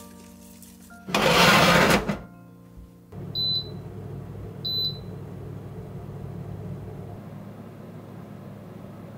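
Food dehydrator's touch control panel beeping twice as its buttons are pressed, with the dehydrator's fan starting up and then running with a steady low hum. A loud rushing noise lasts about a second before it.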